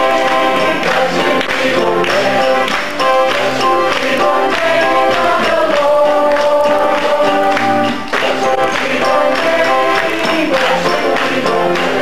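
A group of men singing a gospel song together, accompanied by an electric keyboard and a steady percussion beat.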